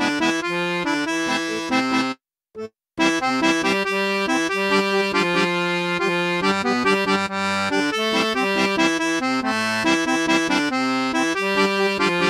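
Diatonic button accordion playing a vallenato passage, melody over bass accompaniment. The music breaks off for under a second about two seconds in, then a new passage starts.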